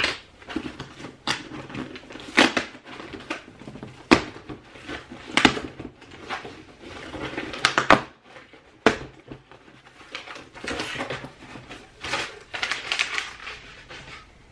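A cardboard shipping box being opened by hand: packing tape ripped and flaps pulled apart, with sharp tearing and scraping noises at irregular intervals. Denser rustling of crumpled brown kraft packing paper in the last few seconds.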